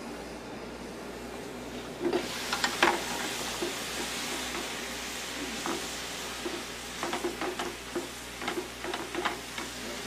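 Onions sizzling in butter in a stainless sauté pan, juices cooking out as they start to caramelize. About two seconds in, the metal lid is lifted with a couple of clinks and the sizzle comes through louder and steady, with scattered pops and crackles toward the end.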